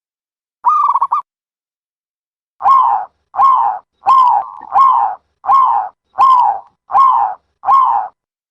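Dove cooing: one short trilled coo about half a second in, then a run of seven short coos, each rising then falling in pitch, evenly spaced about two thirds of a second apart.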